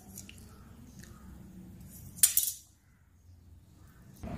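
Quiet handling of a plastic pen refill and a metal ruler, with one short metallic clink about two seconds in.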